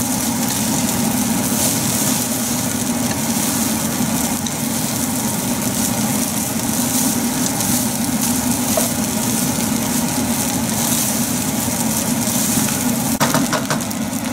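Cold cooked rice with vegetables being stir-fried and tossed in a nonstick pan with a wooden spatula, over a steady hum with a hiss on top. A few sharp clicks of the spatula against the pan come near the end.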